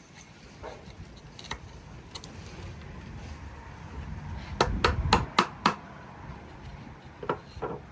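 Hammer striking wood: a few light taps, then a quick run of five sharp blows, then two more strikes near the end.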